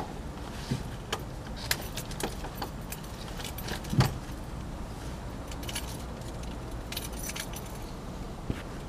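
Keys jingling and clinking in a hand, in scattered short jangles with a cluster near the end, and one soft knock about four seconds in, over a low steady hum inside a parked car.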